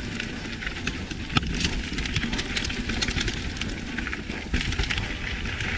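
Mountain bike riding along a dirt trail: a steady rumble of wind and tyres on the microphone, with frequent clicks and rattles from the bike over the rough ground.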